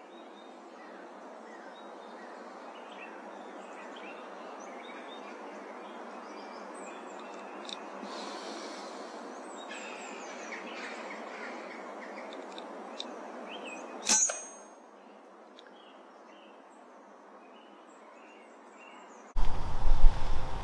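Faint woodland birdsong with small chirps, broken about 14 seconds in by a single sharp crack of an air rifle shot with a brief metallic ring.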